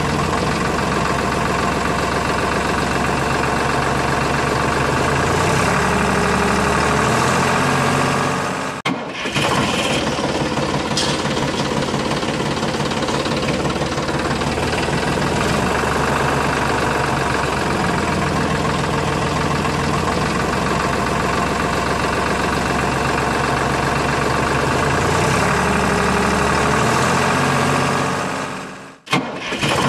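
Tractor engine running steadily, its pitch stepping up and back down twice, with a brief dropout about a third of the way in and again near the end.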